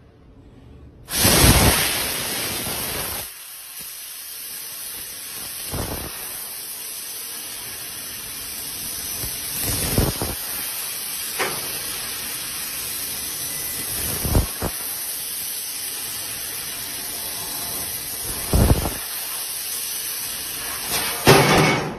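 Fiber laser tube cutting machine cutting a square metal tube: a steady hiss of gas jetting from the cutting head starts about a second in and runs on, with short louder bursts now and then as the cut goes on.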